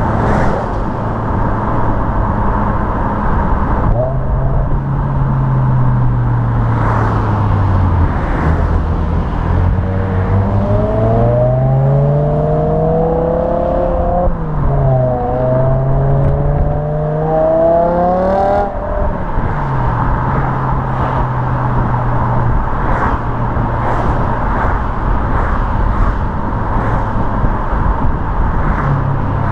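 BMW E61 M5's 5.0-litre V10 on standard rear silencers, heard while driving. The engine note falls as the car slows, then rises twice under acceleration with a brief dip between, and settles back to a steady cruise. Tyre and road noise run underneath.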